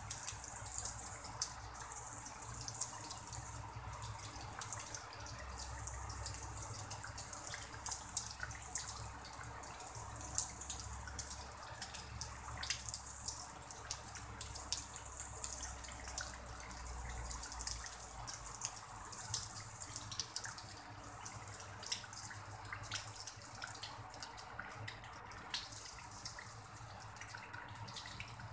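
Light drizzle falling on a pond and surrounding grass: a steady soft hiss with many small, sharp ticks of single drops landing.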